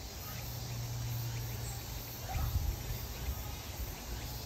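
Outdoor background of insects chirping, over a low rumble, with a few soft thumps about halfway through.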